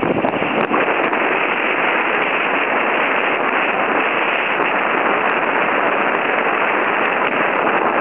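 Steady rush of wind on the microphone mixed with road noise from bicycles coasting down a paved road.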